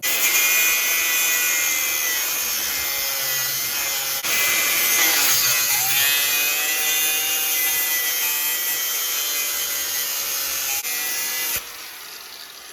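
Angle grinder cutting into a seized steel suspension bolt, its pitch sagging as the wheel bites in about five seconds in. The motor shuts off near the end and winds down with a falling whine.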